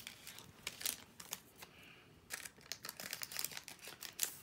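Faint, irregular crinkling and light clicks of Pokémon trading cards and foil booster-pack wrappers being handled.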